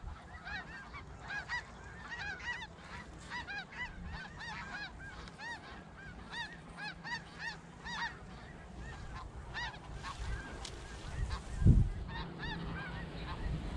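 A large flock of snow geese calling: a constant stream of short honks, each rising and falling in pitch, overlapping one another. A low thump about three-quarters of the way through.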